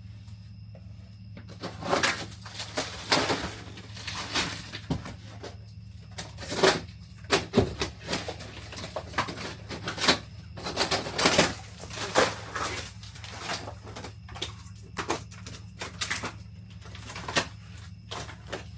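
Hand demolition of RV wall panelling: an irregular run of knocks, scrapes and rustles over a steady low hum.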